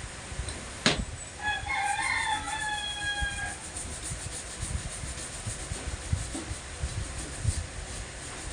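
A rooster crowing once, a single call of about two seconds that dips slightly in pitch at the end, preceded by a sharp click about a second in.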